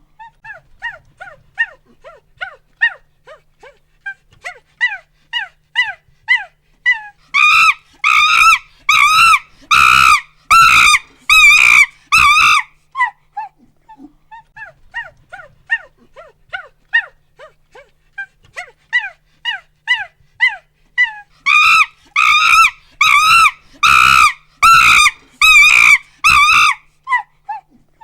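Monkey hooting in a run of short calls that quicken and build into loud screams about a third of the way in, drop back to hoots, then build into loud screams again near the end.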